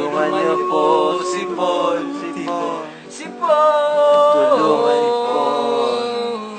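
A man singing long held, wavering notes, with a short break about three seconds in before a louder held note.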